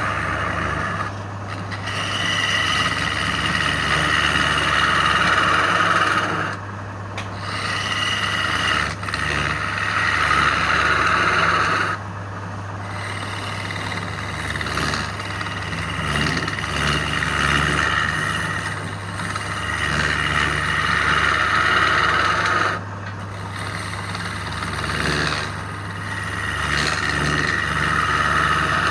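Wood lathe running with a steady motor hum while a tool or abrasive rasps against the spinning wood. The rasping comes in passes several seconds long, with brief breaks between them.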